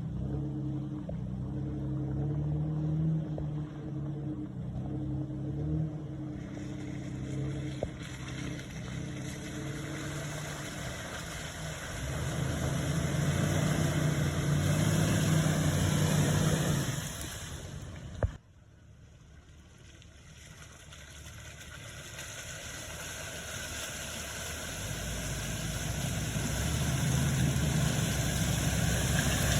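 Jeep TJ engine running, getting louder from about twelve seconds in. It cuts off sharply with a click at about eighteen seconds, then an engine sound builds gradually again toward the end.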